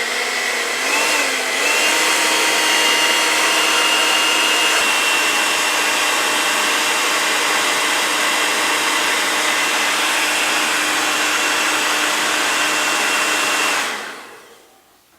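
Hand-held hair dryer blowing hot air onto heat-shrink tubing. Its motor whine wavers for the first second or so, then settles into a steady blow, and near the end it switches off and winds down.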